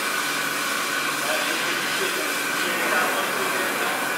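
Water hose spraying hard onto the cellar floor and the wine press, a steady rushing hiss with a faint steady machine hum underneath.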